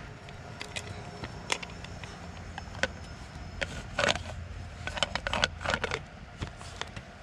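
Aluminium pressure cooker lid being set on the pot and twisted shut: a string of metal clinks, knocks and scrapes, busiest in the second half, as the lid locks and the pressure weight is fitted onto the valve.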